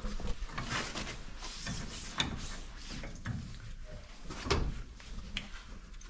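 Irregular metal clinks, knocks and scraping as the steel lift arms and pins of an Ursus C-360-3P tractor's rear three-point linkage are handled and fitted. The sharpest knocks come about two seconds in and again about four and a half seconds in.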